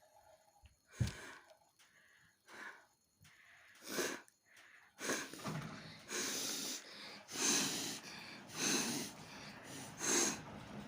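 A person forcefully blowing and snorting through the nose in a string of short, breathy blasts. The blasts grow louder from about five seconds in and come roughly once a second.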